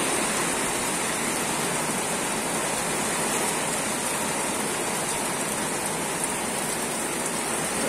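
Heavy rain falling steadily on garden foliage and wet ground, an even hiss with no letup.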